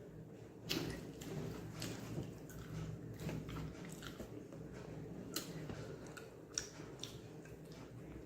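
A person chewing mouthfuls of chicken fried rice and egg podimas close to the microphone, with many short, irregular mouth clicks over a low steady hum.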